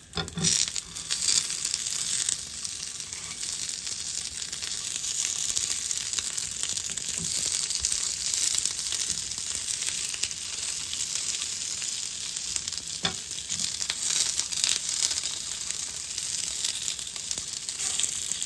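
Korean pancakes sizzling steadily as they fry in a nonstick pan, with a few short clicks from a silicone spatula as they are turned over.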